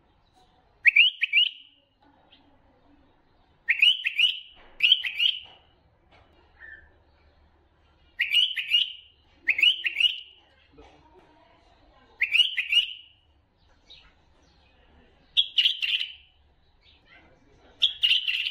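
Bulbul song: about eight short, loud phrases of quick rising whistled notes, repeated every one to three seconds.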